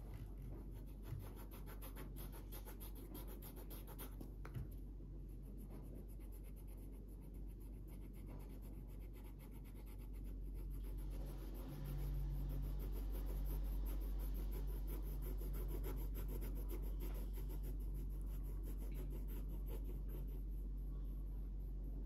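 Felt-tip marker scratching on paper in many quick short strokes, over a low steady hum that grows louder about halfway through.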